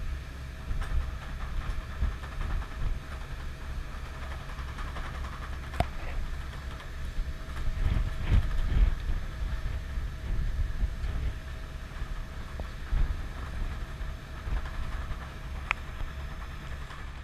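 Ferry under way: a low rumble of the ship's engines, with wind buffeting the microphone and a faint steady hum.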